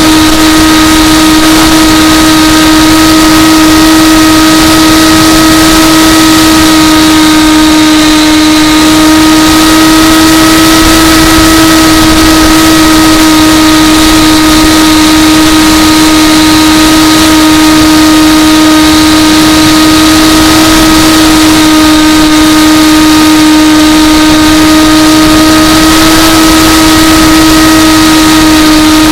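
Electric motor and propeller of an AXN Floater remote-control plane running at a steady throttle, a loud, constant-pitched whine with a rush of wind underneath.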